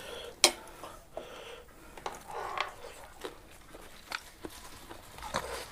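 Close-up eating sounds: a person chewing and biting food, with scattered small clicks and one sharp click about half a second in.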